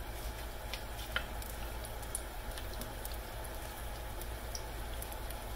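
Apple fritter batter frying in hot oil in a stainless steel pan: a steady, even sizzle with scattered small pops.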